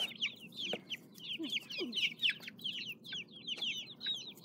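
A flock of young chicks peeping continuously: many short, high calls, each falling in pitch, several a second and overlapping.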